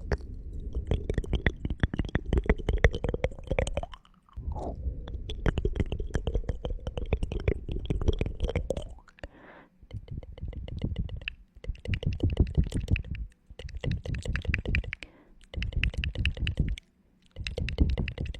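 Close-miked ASMR clicking and crackling in rapid runs, heavy and rumbly, coming in about seven bursts with short pauses between them.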